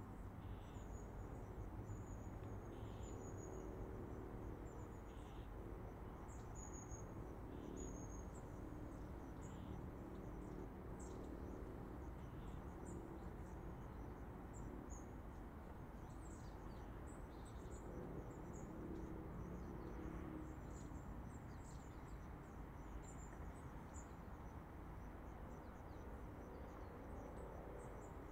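Steady low rumble of distant highway traffic, with small birds chirping and insects calling over it in short high chirps.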